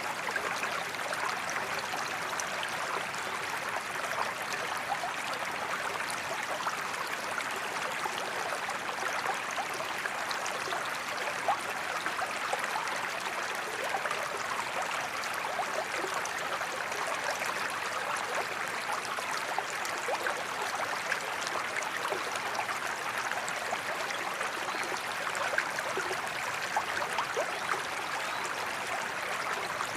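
Forest creek flowing steadily, a continuous babble of water with many small splashes and gurgles.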